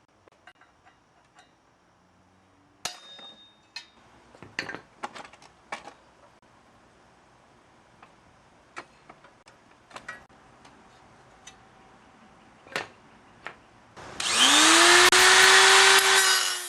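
Irregular hammer blows on steel, driving out a rusted folding-hinge pin, one blow leaving a short metallic ring. Near the end a handheld power tool starts, spinning up and running loud and steady.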